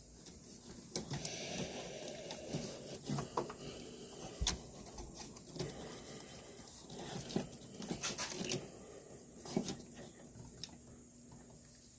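Hands handling wires and small connector parts: irregular light clicks, taps and rustling, with a few sharper clicks, growing quieter near the end.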